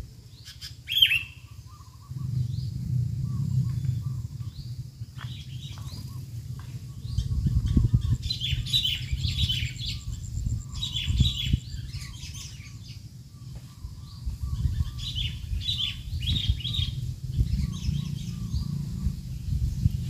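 Sooty-headed bulbul chicks in the nest giving bursts of high, rapid begging chirps, strongest about midway and again near the end, with softer short chirps repeating in between. A low rumble runs underneath.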